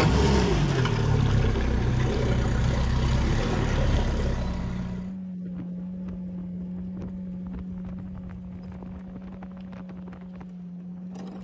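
Outboard jet motor of a drift-boat-style jon boat running the boat at speed, with wind and water rushing past. About five seconds in the sound drops to a quieter steady hum with light clicks.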